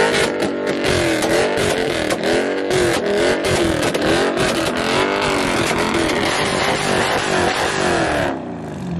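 A car engine revving up and down on a rev limiter, about twice a second, through a crackling stream of rapid exhaust pops, the pop effect of a two-step launch-control or anti-lag tune. It cuts off about 8 seconds in.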